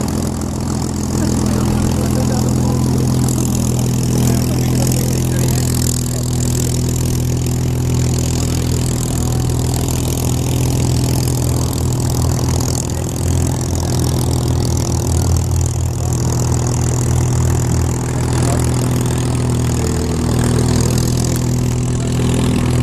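Supermarine Spitfire Mk.XVI's Packard-built Merlin V12 engine running steadily at a low taxiing idle, a deep even drone with its propeller turning.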